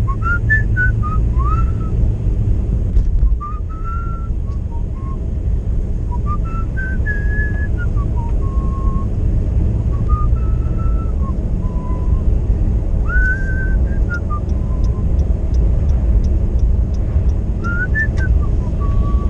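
A man whistling a tune in short gliding phrases with pauses between them, over the steady low rumble of a car driving, heard from inside the cabin. A quick run of even ticks comes in the second half.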